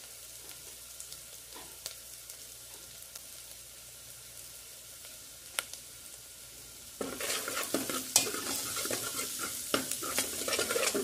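Chopped onion and garlic frying in oil in a stainless steel pot, a faint sizzle with a few light clicks. About seven seconds in it turns much louder, with dense crackling and scraping as the pan is stirred.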